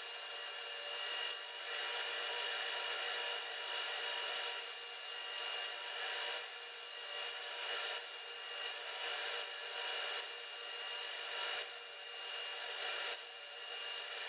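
Powermatic table saw running steadily while its blade takes repeated short cuts into the end of a softwood board. The board is shifted sideways between passes to nibble out slots and a notch, giving a cutting burst about once a second over the motor's even hum.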